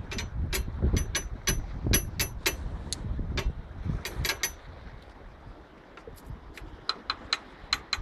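Quick sharp taps of a small hard object knocked against a metal stair handrail, some with a short ringing tone, coming in clusters and thinning out in the second half, with wind rumbling on the microphone.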